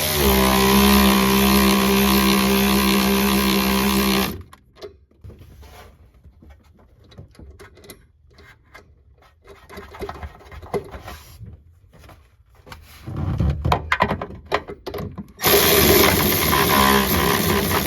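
A handheld power tool whirs steadily for about four seconds, running a nut down on a rear shock absorber mount. Quieter clicks and metal handling sounds follow, and the tool runs again briefly near the end.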